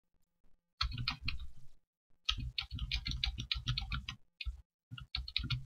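Computer keyboard keys clicking in quick runs of rapid keystrokes, three bursts with short pauses between: the repeated key presses of pasting a line of text over and over.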